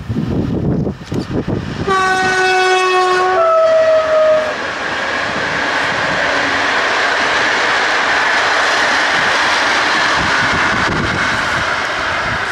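EP09 electric locomotive's horn sounds the Rp1 "attention" warning about two seconds in: a lower note for over a second, then a shorter higher one. It is followed by the steady noise of the passenger train's wheels on the rails as the coaches run past.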